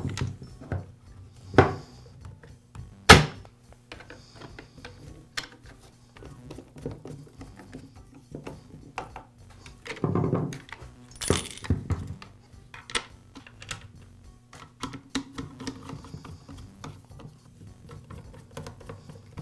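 Clicks and knocks of plastic parts as a Poulan chainsaw's plastic top handle is fitted onto its housing and handled, with a few sharp clicks, the loudest about three seconds in and another about eleven seconds in. A screwdriver works a screw into the handle near the end.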